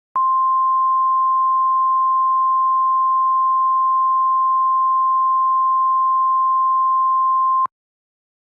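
Emergency alert attention tone: a single steady pure tone near 1050 Hz, like the NOAA Weather Radio warning alarm. It is held for about seven and a half seconds and cuts off abruptly.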